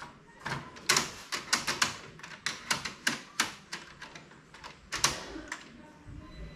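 Irregular plastic clicks and knocks from hands handling the HP LaserJet Pro M428dw's pulled-out paper tray, quick and clustered, with the loudest knocks about a second in and about five seconds in.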